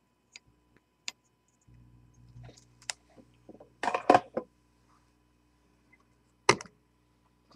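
Light clicks and taps of small metal parts and tools being handled on a steel workbench, then a quick burst of loud clattering knocks about four seconds in and one sharp knock a couple of seconds later.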